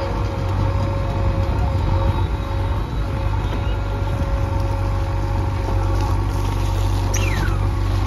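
JCB 3DX backhoe loader's diesel engine running hard and steady as the backhoe bucket digs into and swings loose stone, with a steady high whine above the low engine rumble. A brief falling squeal comes near the end.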